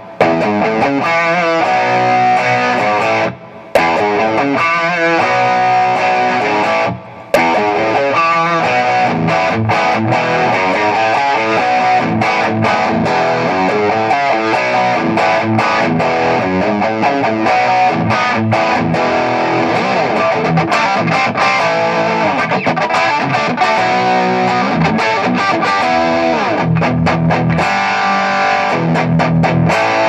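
Distorted electric guitar played on a Gibson Les Paul Traditional Pro through the Lead 1 Red channel of a Mesa/Boogie Triaxis preamp, into a Mesa 20/20 power amp and Rectifier cabinet. The single-note lines stop briefly about three and a half and seven seconds in, and there are bent notes around the middle.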